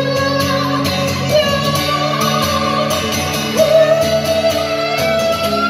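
A man singing long, held high notes while playing an acoustic guitar; the voice steps up to a higher note about three and a half seconds in.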